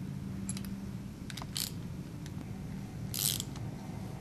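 Ratchet wrench with a 1/2-inch socket clicking in short strokes as a nut is run down on a carriage bolt, with a few light metal clicks and knocks between the strokes.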